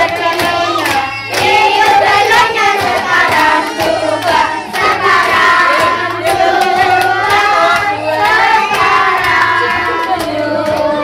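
Voices singing a birthday song together over a music track with a steady beat.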